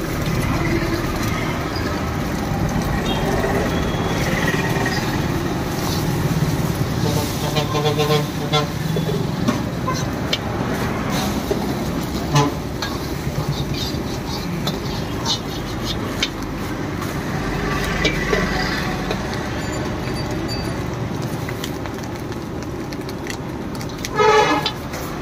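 Street traffic with vehicle horns honking over the steady sizzle of eggs frying in an iron wok on a gas burner, with occasional sharp clinks and scrapes of a steel ladle against the wok.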